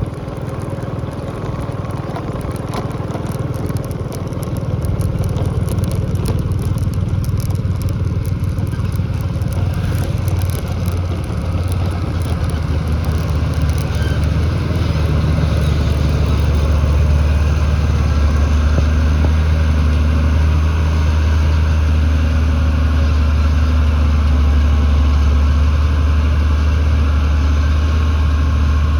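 Bulldozer's diesel engine running, getting louder over the first half and then holding steady, with scattered crackling over roughly the first ten seconds.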